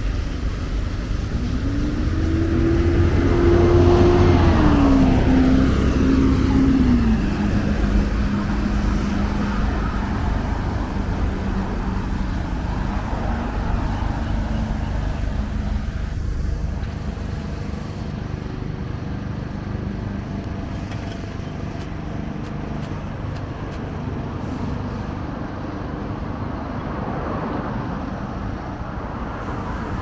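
A car drives past close by, loudest about four seconds in, its engine note dropping in pitch as it goes away. A steady, quieter traffic hum follows.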